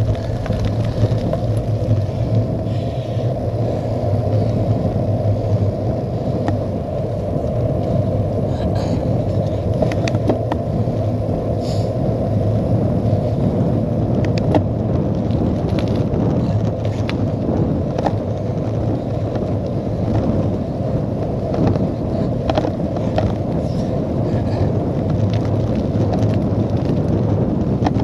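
Steady rumble of wind on the microphone and a cyclocross bike's tyres rolling on wet tarmac, with scattered short clicks and knocks from the bike over bumps in the road.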